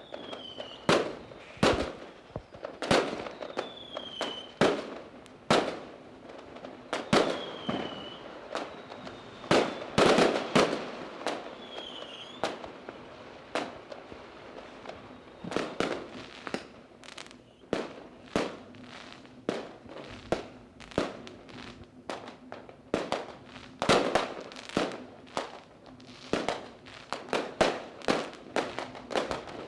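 Fireworks going off: a string of sharp bangs, each trailing away, with a few short falling whistles among them in the first half. The bangs come faster and denser near the end.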